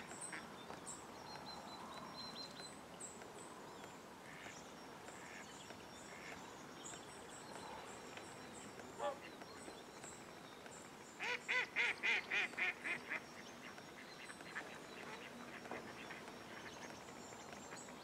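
Wild waterfowl calling: a single call about nine seconds in, then a quick run of about nine loud calls a couple of seconds later, over faint distant bird calls.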